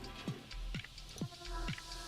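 Background music with a steady electronic beat, about two kick-drum thumps a second under held synth tones.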